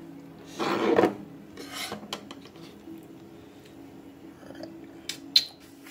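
A short rasping scrape about half a second in, a weaker one just after, and a few light clicks later, over a faint steady hum.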